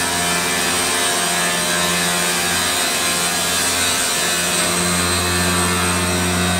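Stone CNC machining center's spindle grinding the edge of a stone countertop slab under water spray: a steady grinding noise over a constant low motor hum, with a thin high whine.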